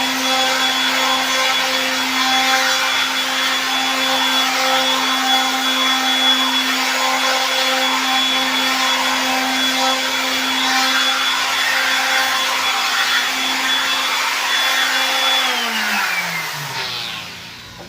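Electric power tool motor running at steady speed with a high whine over a rushing hiss. About fifteen seconds in it is switched off and its pitch falls as it spins down over about two seconds.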